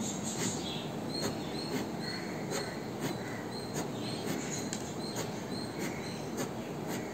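Fine-tip pen drawing quick short strokes on paper, a light scratch or tap about twice a second, over a steady background hiss.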